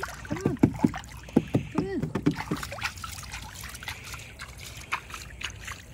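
Water sloshing and splashing in a shallow plastic kiddie pool as a hand swishes it around. There are short splashy strokes, busiest in the first half.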